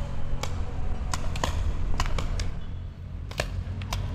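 Paintball markers firing in scattered single shots and quick pairs, about a dozen sharp pops over a steady low rumble.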